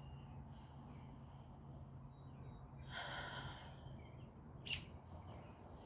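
A person breathing faintly, with one audible breath out about three seconds in and a short sharp click or sniff near the end, over a steady low hum.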